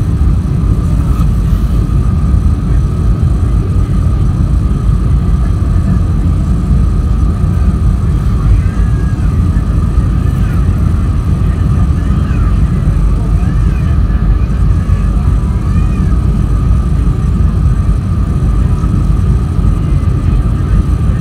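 Jet airliner cabin noise on final approach, heard from a window seat over the wing: a steady, loud rumble of engines and airflow with a constant whine. Faint voices come through in the middle.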